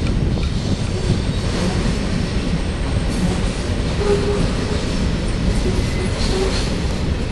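Freight train of autorack cars rolling past: a steady rumble of steel wheels on rail, with a few brief faint wheel squeals about four and six seconds in.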